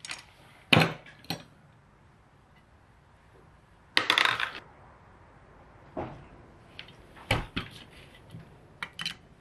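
Scattered light metal clinks and knocks as a Dellorto DHLA twin-choke carburettor body and its small parts are handled and turned over on a workbench. There is a longer clatter about four seconds in.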